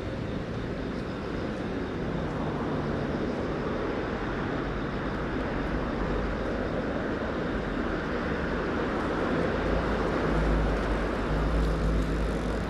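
Steady rumble of distant engine noise with a low hum, swelling near the end.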